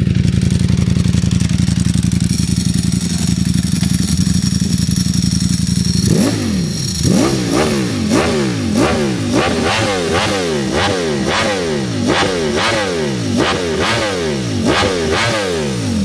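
Ducati Streetfighter V4 Lamborghini's V4 engine, warm, running loud through a freshly fitted, untuned Termignoni titanium exhaust. It idles steadily, then about six seconds in starts a long run of quick throttle blips. Each blip revs up and drops straight back, about three every two seconds.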